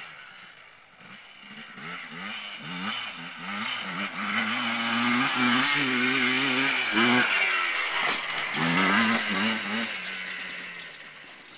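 Yamaha Blaster ATV's two-stroke single-cylinder engine revving up and down as it is ridden. It grows loud about halfway through as the quad passes close, then fades as it rides away.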